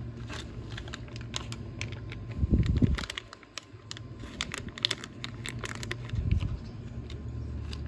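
Quick plastic clicks and rattles of a car's turn-signal bulb socket and bulb being handled and worked, with two dull thumps, one about two and a half seconds in and one about six seconds in.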